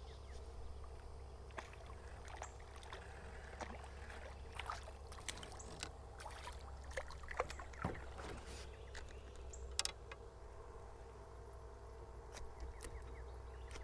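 Small water splashes and scattered clicks and knocks against a canoe as a small hooked panfish is brought up beside the boat and handled, over a steady low hum.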